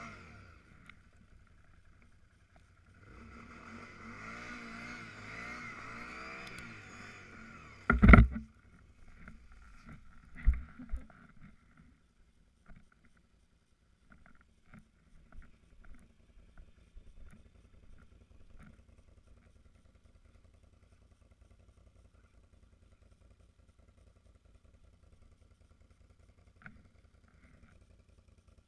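Can-Am Outlander 800R ATV's V-twin engine heard faint and muffled. A loud knock comes about eight seconds in and another a couple of seconds later; after that there are only faint scattered clicks.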